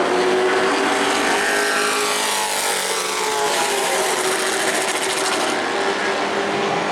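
Several race truck engines running at speed on a short oval track, with a pitch that falls as a pack goes past about two to three seconds in.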